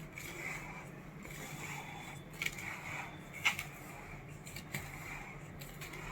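Soft scraping and rustling of ground urad dal and powdered sugar being mixed together, with a sharp click about two and a half seconds in and another about a second later.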